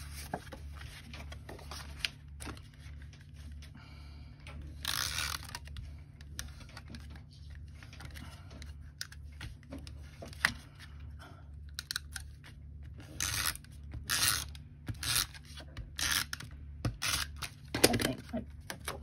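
Tombow Mono adhesive runner drawn across the backs of paper pieces in short ripping strokes, with paper rustling as the pieces are handled and pressed down. One longer stroke comes about five seconds in, and a run of quick strokes near the end.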